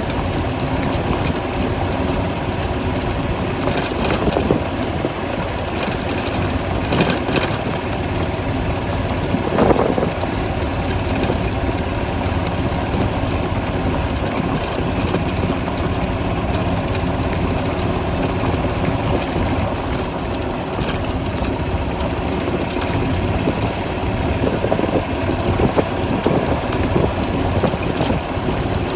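Golf cart engine running steadily as the cart rolls over a gravel road, with tyre noise on the gravel and a few short knocks from bumps in the first ten seconds.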